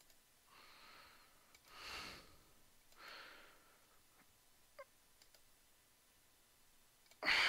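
A person breathing close to the microphone, three soft breaths in the first few seconds and a loud sigh just before the end, with a few faint mouse clicks in between.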